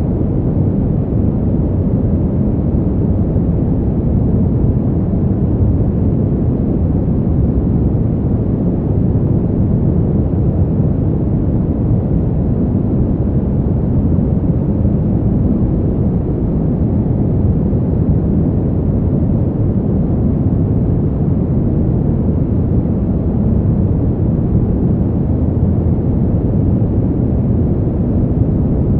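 Brown noise: a steady, deep rumbling hiss, strongest in the bass and dull in the treble, with no change in level.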